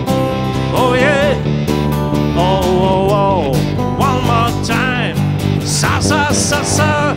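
Live band music: a man singing over strummed acoustic guitars and an electric guitar.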